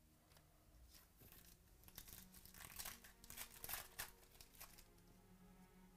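Faint crinkling and rustling of trading-card packaging handled between fingers, a quick run of small crackles that is busiest in the middle and dies away near the end.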